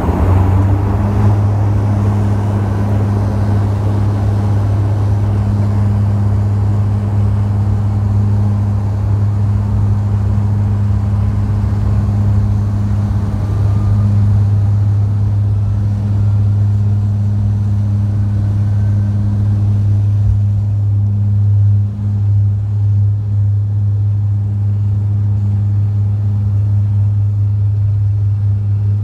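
Cabin noise inside a Porter Airlines Dash 8 Q400 turboprop: a loud, steady low propeller drone with a second hum above it, over a rushing hiss.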